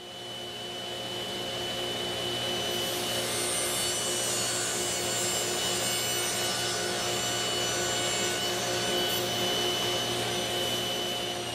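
Table saw running, its blade tilted to 45°, ripping bevelled strips from plywood under a steady motor hum. The blade begins to spin down at the very end.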